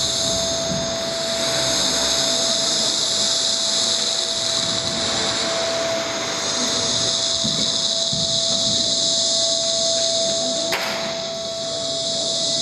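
Steady drill-like electronic noise from a dance soundtrack: a loud high hiss with a held mid-pitched tone underneath, and one sharp click about eleven seconds in.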